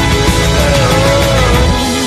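Background pop-rock music with a steady beat and a gliding lead melody, in an instrumental stretch of the song.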